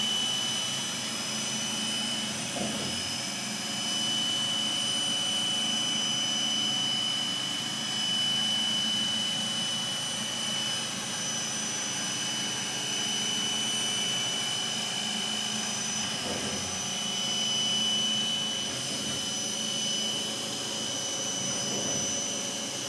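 Haas GR-510 CNC gantry router engraving, its spindle running with a steady high-pitched whine over the noise of the cut, swelling and easing a little now and then.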